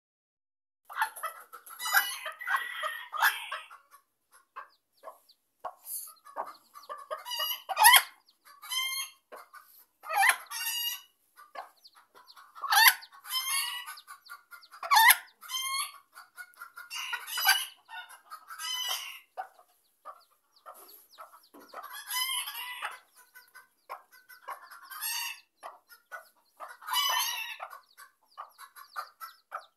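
Sebright bantam hen clucking and calling in short bursts every second or two while her chicks peep, the hen on guard over her brood.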